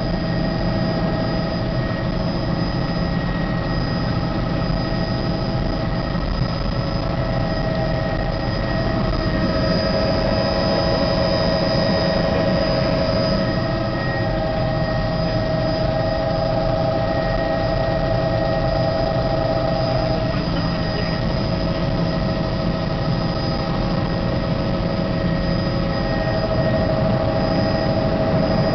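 Helicopter in flight heard from inside the cabin: a steady, loud rumble of engine and rotor with a constant high whine over it, swelling slightly a couple of times.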